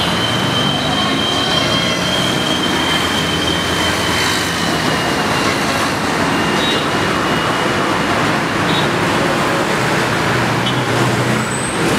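Loud, steady street and traffic noise, with a high drawn-out squeal over the first few seconds that fades away around the middle.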